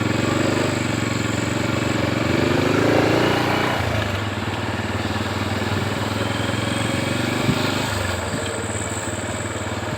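Vehicle engines running on the road. The engine note rises and falls over the first few seconds, then runs steadily.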